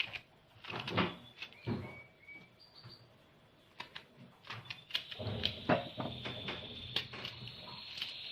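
Kitchen handling sounds as a whole onion is cut up skin-on for a food chopper: scattered knocks and clicks, coming thicker about halfway through. A faint steady high whine comes in at the same point.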